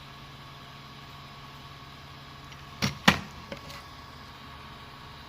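Two sharp clicks about three seconds in, then a faint tick, as a small tool accessory is handled and set down, over a steady low hum.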